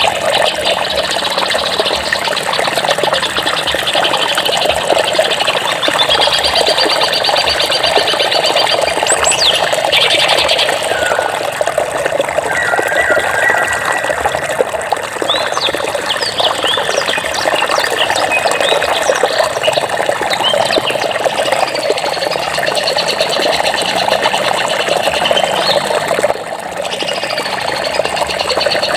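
Running water with a steady rushing sound, with small birds chirping and trilling over it throughout.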